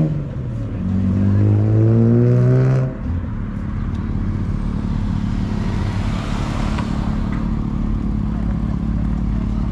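A car's engine revs as it pulls away. The pitch climbs, holds, then drops off sharply about three seconds in, and a steady low engine rumble carries on.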